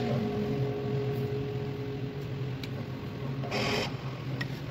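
Electric guitar through an amplifier: a single held note dies away about halfway through over a steady low hum, with a brief scratchy noise about three and a half seconds in.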